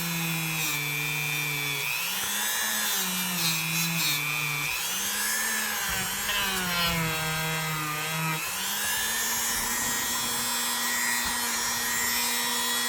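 A small electric power tool's motor running as it works the rust off an old pocket-knife blade. Its hum drops in pitch three times as the tool is pressed onto the metal and recovers between, then runs freely at a steady, higher pitch for the last few seconds.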